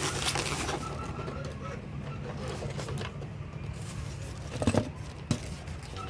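Small electric sewing machine running steadily, its motor and needle working at a fast even rate, with two short clicks near the end.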